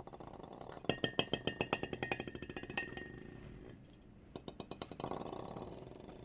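Music made of rapid, evenly spaced clinking and tapping notes with high ringing tones, about ten strikes a second, pausing briefly near the middle before another quick run and a softer held passage.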